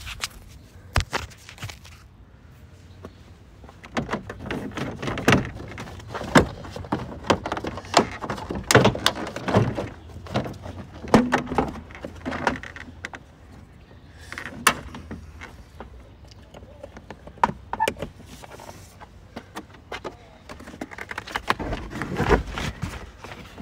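Plastic interior trim panel being pulled off a 2012 Toyota RAV4's rear hatch: a long run of sharp clicks, snaps and knocks as the retaining clips pop loose and the panel is handled, busiest in the middle and again near the end.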